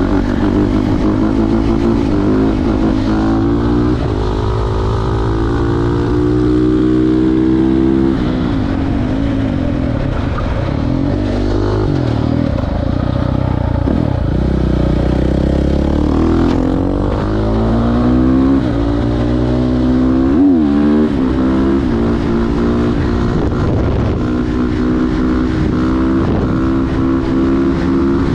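KTM 450 SMR's single-cylinder four-stroke engine through an Akrapovic exhaust, under way: the revs climb and drop again and again as the throttle is worked, settling into a steadier run for the last few seconds.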